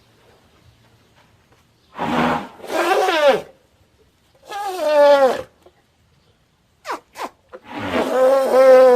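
Vocal calls from the cartoon elephant Khan Kluay, one after another, each ending with a drop in pitch: two close together about two seconds in, one near the middle, a very short one around seven seconds, and a longer, held one near the end.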